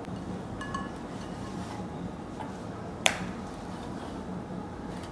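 Kitchen knife scoring a pomfret on a wooden cutting board. A faint metallic ping comes about a second in, and a sharp click of the blade against the board about three seconds in, over a steady low hum.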